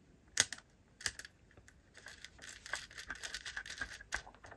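Small clicks and light scraping from handling ring terminals on the ends of a coax cable as they are fitted over the screw studs of a small plastic amplifier box. There is a sharp click about half a second in, another about a second in, then a run of lighter clicking and rustling.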